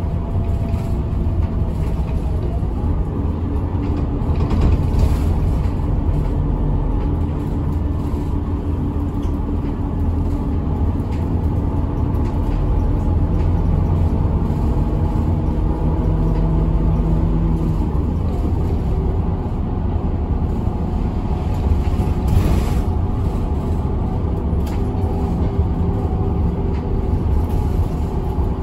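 Route bus under way heard from inside the cabin: a steady low engine and road rumble, the engine note changing about two-thirds of the way through.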